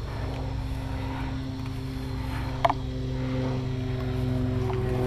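A steady engine drone that grows gradually louder, with one sharp click about two and a half seconds in.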